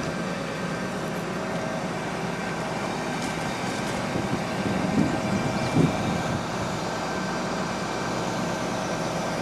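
Link-Belt 2800 excavator's diesel engine running steadily, with a couple of brief swells in level a little past the middle.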